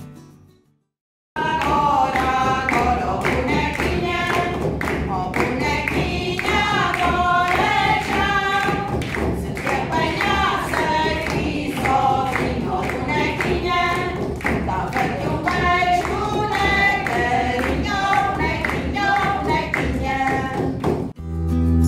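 A group of women singing a folk song together while beating adufes, square frame drums of sheep or goat skin, in a steady rhythm. The singing starts about a second in, after a brief silence.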